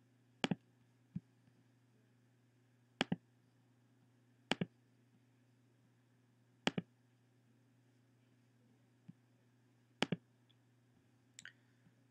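Computer mouse clicking about seven times at irregular intervals, several clicks coming as quick double ticks, over a faint steady low hum.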